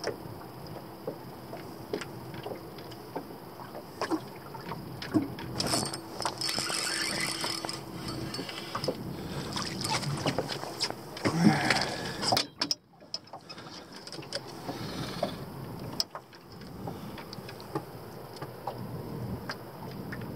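Handling noises of fishing tackle in a small boat: scattered sharp clicks and knocks, a faint steady hum over the first several seconds, and two louder noisy stretches about six and ten seconds in.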